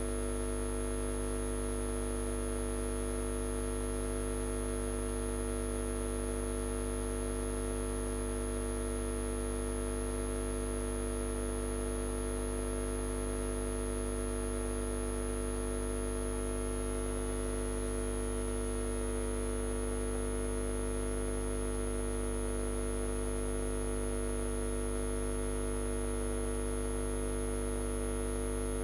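Steady electrical mains hum, a few constant tones over a faint hiss, unchanging throughout.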